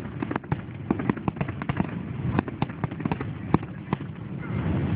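Starmine fireworks barrage: rapid, irregular bangs and crackles, several a second, thinning out near the end.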